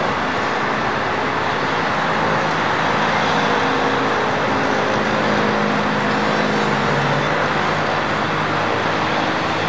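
Concrete mixer truck's diesel engine running as the truck moves off slowly, under a steady rushing noise.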